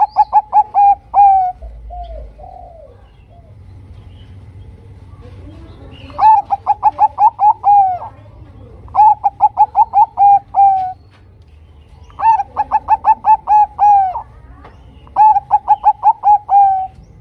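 Zebra dove of the Bangkok song strain (perkutut Bangkok) cooing: five bursts of rapid, evenly spaced coo notes, each burst about a second and a half to two seconds long and ending on a slightly longer note. A couple of softer, lower gliding notes come about two seconds in.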